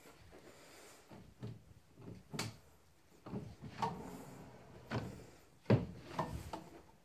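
High-gloss drawers on Blum Tip-On push-to-open runners being popped open and slid out one after another: a run of uneven knocks and clicks from the fronts and runners, the loudest a little before the end.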